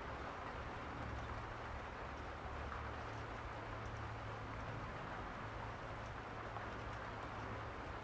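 Steady rain falling, an even patter with no breaks.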